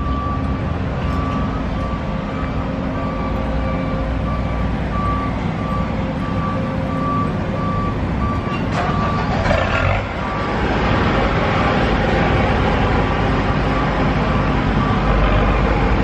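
A vehicle's backup alarm beeping on one pitch at an even pace, over a steady rumble of engines and traffic. About nine seconds in the beeping fades, and a louder, steady wash of noise takes over.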